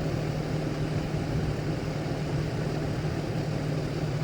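Steady low mechanical hum over a constant rush of noise, unchanging throughout.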